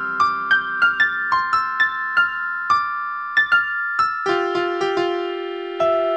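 Piano-like keyboard music: a melody of separate struck notes, two or three a second, over held lower notes, with a new held chord about four seconds in.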